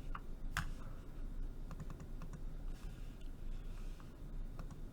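Faint, scattered clicks of a computer mouse and keyboard, with one sharper click about half a second in, over a steady low hum.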